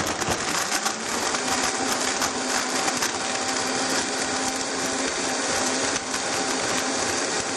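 High-speed blender running steadily at full speed, blending soaked almonds and a date in water into almond milk: an even, unbroken whir with a steady hum under it.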